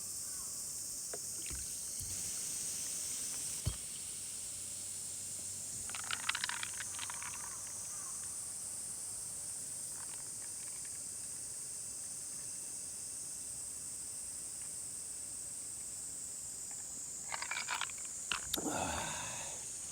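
Steady high-pitched drone of summer insects in the forest. Brief bouts of rustling and clicking come about six seconds in and again near the end.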